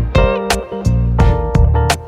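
Background music: a guitar-led track with plucked notes over a bass line.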